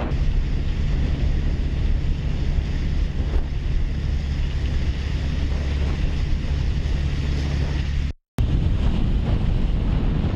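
Strong wind buffeting the microphone over rushing, splashing water, a steady low rumble. The sound cuts out completely for a moment about eight seconds in.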